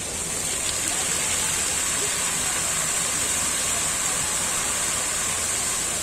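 Water pouring in a heavy stream from an overhead barrel tank shower, splashing onto a person and the concrete floor below. It swells just at the start as the valve is opened, then runs steadily.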